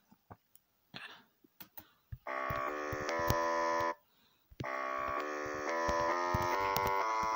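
Sampled bassoon notes from a virtual bassoon app, tapped one after another up the scale. A short run of notes starts about two seconds in, breaks off briefly, then the notes climb step by step. Faint taps and clicks come before the notes start.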